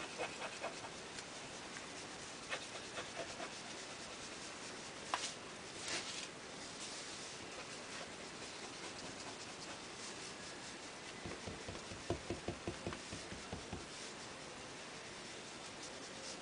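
Applicator tip of a Tombow Multi liquid glue bottle rubbing across the back of a Formica sample chip, spreading glue in faint scratchy strokes. About eleven seconds in comes a quick run of light taps, roughly four a second, for a few seconds.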